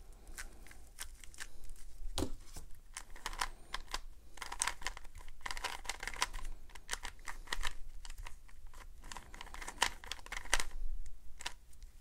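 Plastic 3x3 Rubik's cube being twisted by hand: quick runs of clicks and clatter as its layers turn, in bursts with short pauses between.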